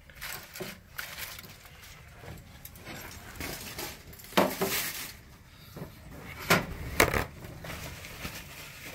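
Scattered handling clatter at a wooden cutting board: metal tongs and a tray giving a few sharp clacks and clinks, loudest about four and a half, six and a half and seven seconds in, with soft knocks between.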